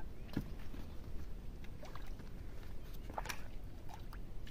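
Faint splashes in shallow water as a hooked rohu is drawn in by hand to the rocky bank: a few short, scattered splashes and knocks over a low steady rumble.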